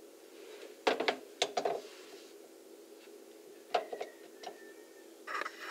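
A few short metallic clicks and knocks of a hand tool working on a kitchen sink's drain fitting, a cluster about a second in and two more near the end, over a steady low hum.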